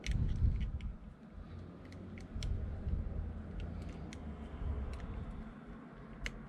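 Handling sounds: scattered light clicks over uneven low bumps and rubbing as small objects are handled.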